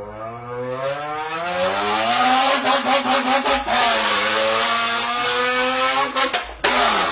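A man's mouth imitation of a race-car engine, voiced into a can: the engine note climbs as if accelerating, then holds high with a few quick stutters. It breaks off briefly near the end and picks up again.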